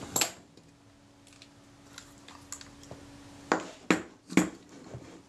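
Small metal clicks and knocks from a Kodak Retina IIa camera body being handled on the bench: one sharp click just after the start, then three sharp knocks within about a second, some three and a half seconds in, as the body is turned over.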